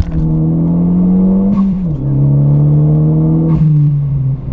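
2016 Ford Focus ST's turbocharged 2.0-litre four-cylinder pulling hard under boost. The revs climb, drop at an upshift about two seconds in, climb again, and fall away near the end, with a short rush of noise at each gear change. The rebuilt 2.5-inch charge pipes are holding boost on this pull.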